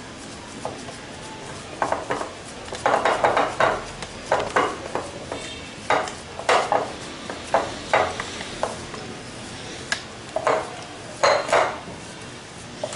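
Hands kneading mashed boiled potato in a glass bowl, with irregular knocks and clatters of hands and bowl against the glass, coming in clusters.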